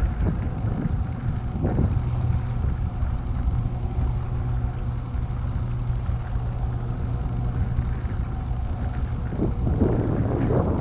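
Boat motor running steadily at trolling speed, a low even hum, with wind and lapping water around it.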